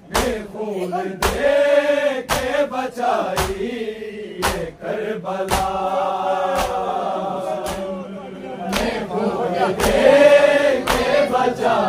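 A group of men chanting a noha in long drawn-out sung notes. Through it come sharp, even slaps of mourners beating their chests in unison (matam), about once a second.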